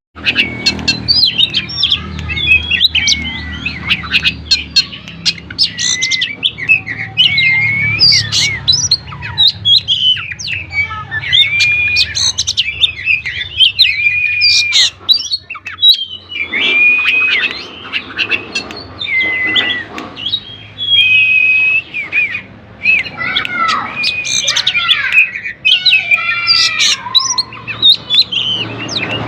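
Oriental magpie-robin (kacer) singing energetically and almost without pause: a fast, varied run of clear whistles, slurred notes and sharp chirps.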